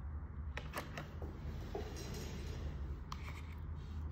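Portable SSD being set into its moulded plastic packaging tray: a few light clicks and a scratchy rub of the drive against the plastic, over a steady low hum.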